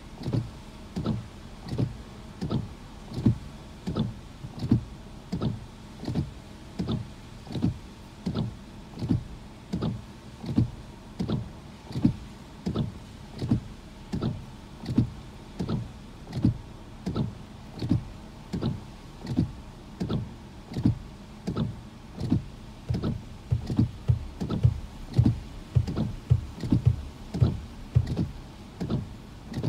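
Car windshield wipers running at a steady fast setting, heard from inside the car: a motor whir and a swish-thump with each stroke, about three strokes every two seconds.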